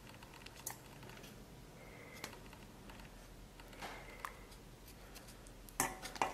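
A few faint light clicks of wooden chopsticks against stainless steel bowls as scallion and ginger pieces are picked out of broth, one or two with a brief metallic ring; the loudest clicks come near the end.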